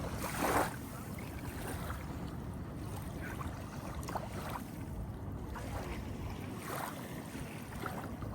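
Steady low rumble of wind buffeting the microphone, with a brief louder gust about half a second in and a few faint short sounds over it.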